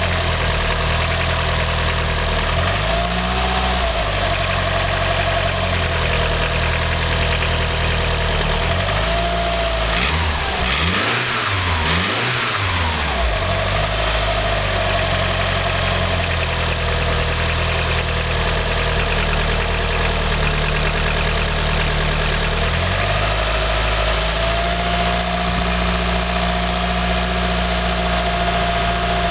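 2.3-litre Mitsubishi 4G63 engine with MIVEC idling, revved up and back down once about ten seconds in. It carries a knocking noise that sounds like piston slap, though its cause was never found.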